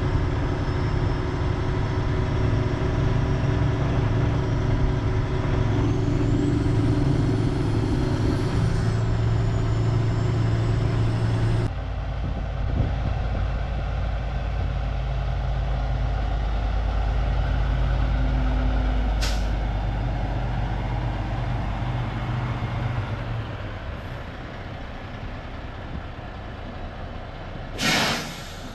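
Heavy diesel truck engine running steadily under way. The sound changes abruptly about 12 s in to a lower rumble. Near the end comes a short, loud hiss typical of an air brake releasing.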